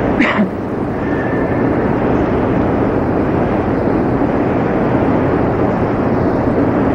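Steady background hiss and rumble of the recording, almost as loud as the talk itself, during a pause in speech. A brief swish comes just after the start.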